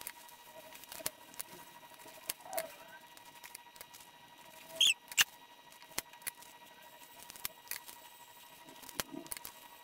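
Small clicks and taps of wooden rose petals and a hot glue gun being handled, with a brief high squeak and a sharp click about five seconds in, over a faint steady hum.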